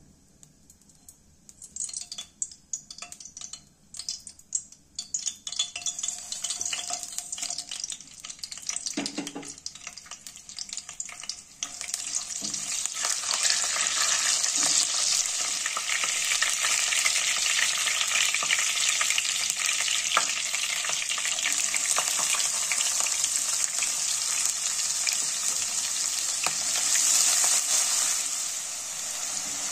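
Whole spices (cumin seeds, dried red chillies, bay leaf, peppercorns) crackling and spluttering in hot oil in a nonstick kadai, stirred with a wooden spatula. After about twelve seconds it turns into a loud, steady sizzle as chopped onions fry in the oil.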